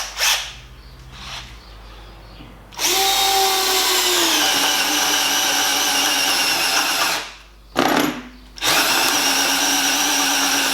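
Bosch Professional 12 V cordless drill driver in first gear, boring a 22 mm spade bit into wood. The motor starts about three seconds in and its whine drops in pitch as the bit bites under load. It stops briefly with a short blip, then runs on.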